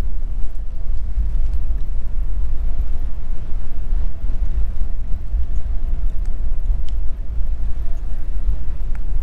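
Wind buffeting a camera microphone on a moving bicycle: a steady, heavy low rumble with no letup.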